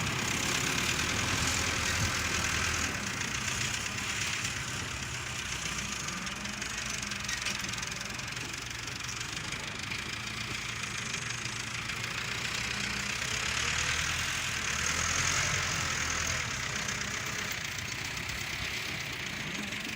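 Heavy construction machine's engine running steadily, with a rushing hiss that swells near the start and again about two-thirds of the way through.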